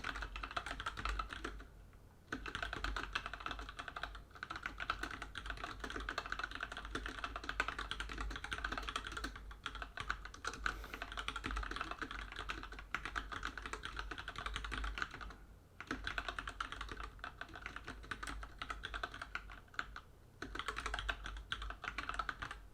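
Fast, continuous typing on a mechanical keyboard fitted with rubber double-shot keycaps: a steady clatter of keystrokes, broken by short pauses about 2, 4, 15 and 20 seconds in.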